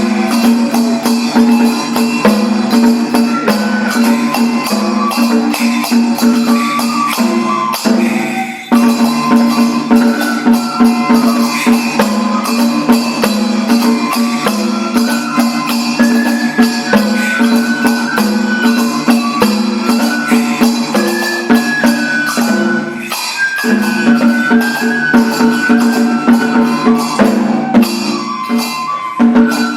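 Daikagura kagura-bayashi music for the bell dance: a high melody line moving in steps over quick, dense percussion strokes, with a brief break about eight and a half seconds in.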